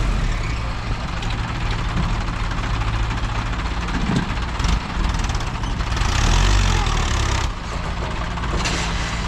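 Diesel tractor engines, an Eicher 551 and a Mahindra, working hard under heavy load in a double-hitched pull: a loud, steady, deep engine drone that eases slightly about three-quarters of the way through.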